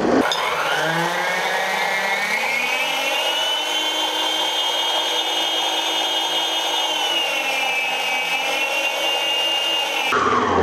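Electric stand mixer motor running as it beats red velvet brownie batter: a whine that rises in pitch over the first few seconds as it speeds up, holds steady, dips slightly, then stops near the end.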